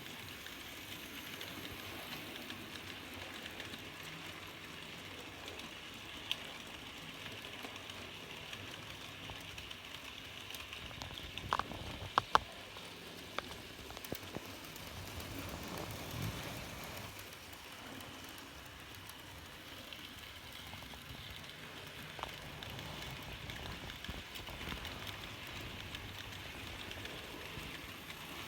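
N gauge model locomotive running on track: a steady small-motor whir and wheel rattle, with three sharp clicks close together about halfway through and a few single clicks elsewhere.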